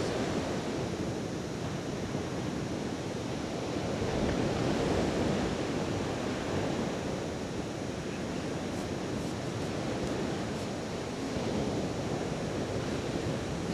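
Steady rushing of surf on a sandy beach, mixed with wind on the microphone, swelling and easing gently.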